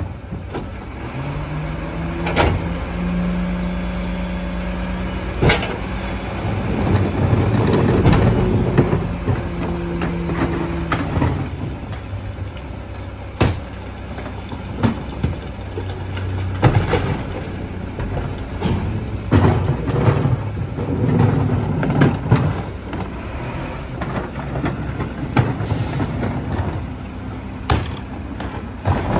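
Split-body rear-loader garbage truck working its brand new cart tippers: the engine revs up with a rising hum about a second in, holds, drops, and revs again a few seconds later as the hydraulics lift and dump carts. Repeated sharp bangs of plastic carts and lids knocking against the tipper and hopper run throughout.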